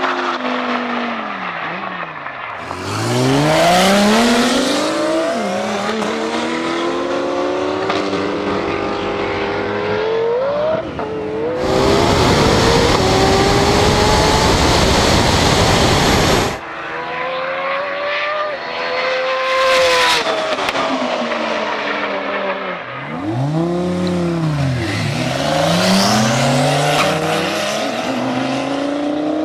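Twin-turbo Lamborghini race cars at full throttle on a drag strip, their engine note climbing and falling in pitch as they pass by. A loud, rushing noise swamps the engine note for about five seconds in the middle.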